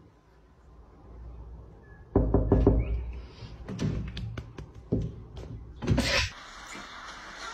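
Quick, irregular taps and knocks on a window pane, starting about two seconds in and going on for about four seconds, with a louder knock near the end.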